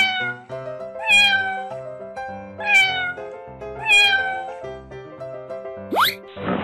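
Cat meowing four times as a cartoon sound effect, each meow falling in pitch, over background music. A quick rising whistle-like glide comes near the end.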